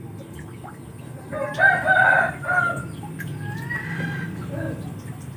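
A rooster crowing about a second and a half in, followed by a fainter call a second or so later.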